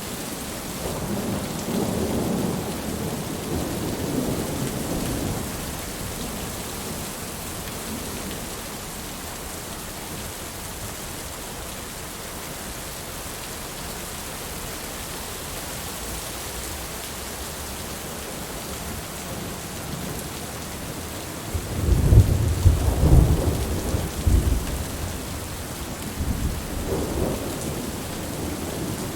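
Heavy steady rain with rolling thunder. A low rumble swells in the first few seconds, and a much louder, crackling peal breaks about two-thirds of the way through, with a weaker rumble after it.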